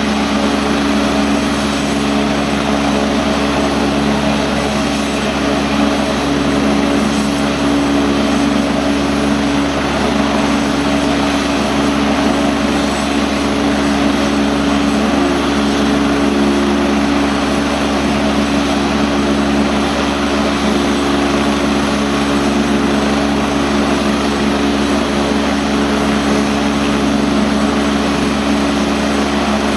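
Air force AgustaWestland AW109 helicopter running on the ground, its turbine engines and rotor giving a steady, unchanging hum and whine at ground idle before takeoff.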